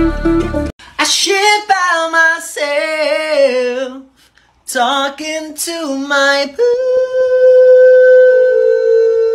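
Background music stops abruptly under a second in, and a voice then sings in short wavering phrases, with a brief break midway. It ends on one long held note.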